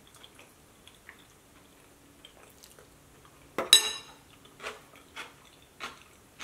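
A metal spoon set down with a sharp clink against a ceramic bowl about three and a half seconds in. Around it are faint mouth sounds of chewing and a few small clicks.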